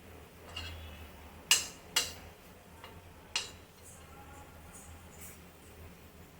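A metal spoon knocking against cookware, a few sharp clinks with the three loudest about one and a half, two and three and a half seconds in, over a faint steady hum.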